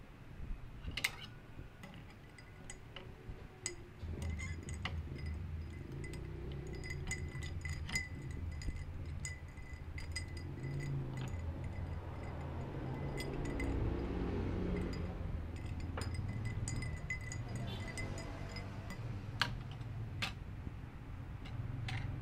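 A spoon stirring a drink in a glass, clinking against the glass many times, with a faint high ring between the clinks. A low steady hum runs underneath from a few seconds in.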